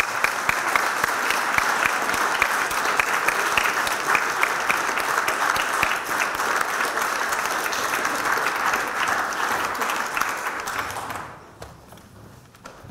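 Audience applauding, a dense steady clapping that dies away about eleven seconds in.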